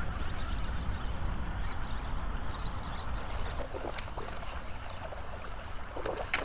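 A hooked bass splashes at the surface while being reeled in, with short splashes about halfway through and the loudest one near the end, over a steady low rumble and water noise.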